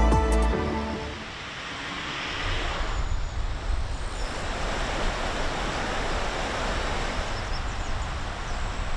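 Steady rushing of a shallow river running over rocks, after background music stops about half a second in.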